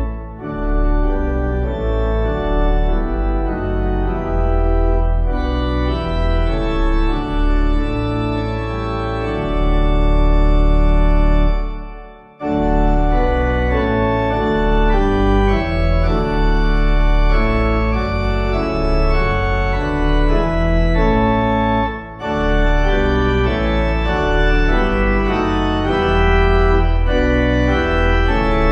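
Organ playing a hymn tune in slow, held chords. It stops briefly about twelve seconds in, at the end of one verse, and starts again for the next.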